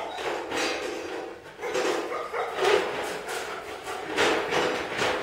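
A dog barking and whining over and over, short sharp barks mixed with pitched whines. The dog is upset either at being left out while another dog is trained or at its owner leaving its sight.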